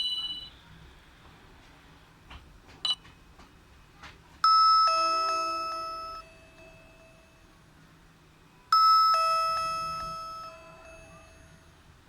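Doorbell-style two-note ding-dong tone from a Nokia 5310 phone's speaker, sounded twice: a high note steps down to a lower one and each rings out for about two seconds. A short click comes about three seconds in.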